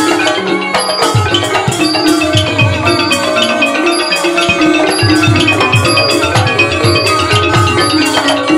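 Thai piphat mai khaeng (hard-mallet) ensemble playing an instrumental passage: ranat xylophones and gong circles in fast interlocking melody over low drum strokes. The drums drop out for about a second near the middle.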